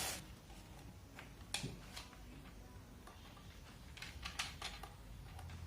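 Faint handling noises from the cordless drill and its packaging being turned over in the hands: scattered light clicks and knocks, a sharper click about a second and a half in and a small cluster of clicks around four seconds in.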